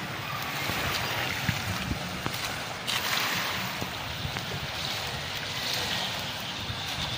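Steady wash of wind and gentle surf at a beach shoreline, with wind rumbling on the microphone.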